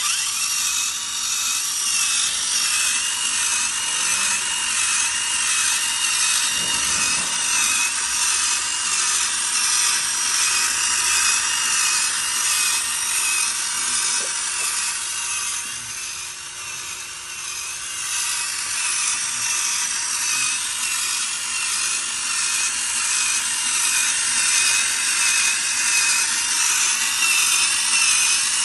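Small electric motor and its gearing turning the drum of a drum-style oil skimmer, a steady mechanical whirr with a wavering high whine, dipping a little about two-thirds of the way through.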